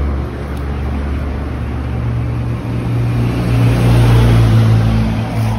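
An engine running steadily with a low hum. Its pitch steps up about two seconds in and it grows louder towards the end.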